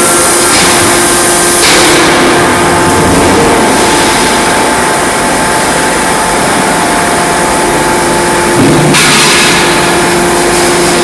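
Loud, steady running noise of forge-shop machinery: a dense hiss with several steady hum tones, with no hammer blows. The hiss shifts in brightness about two seconds in and again near the end.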